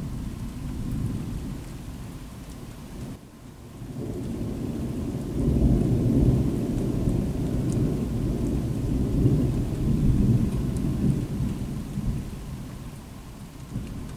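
Thunder rumbling low and rolling. It drops away briefly about three seconds in, then builds to a long, louder rumble from about five seconds in that slowly fades toward the end.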